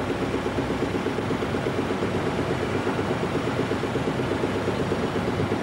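An engine idling steadily with a fast, even throb.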